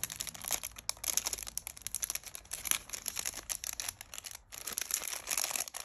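Clear plastic wrapping crinkling and rustling in the hands as a radio antenna is slid out of its sleeve: a run of irregular crackles with a short pause about four seconds in.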